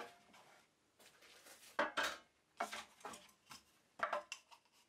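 Cut beech boards being handled and set down on a wooden workbench: a handful of short, light knocks of wood on wood, starting about two seconds in.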